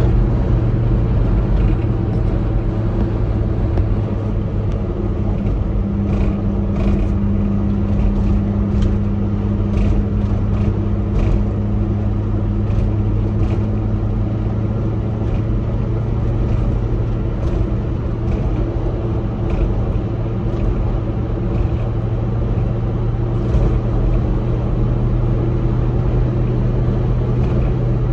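1993 Subaru Sambar kei truck's 660 cc four-cylinder engine running steadily at cruising speed, heard from inside the cab over tyre and road noise. A second, higher drone joins about six seconds in and fades out around halfway through.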